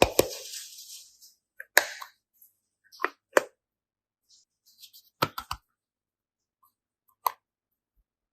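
Short, sparse clicks and soft plops of modelling clay being handled, spaced a second or two apart, with a quick run of three about five seconds in.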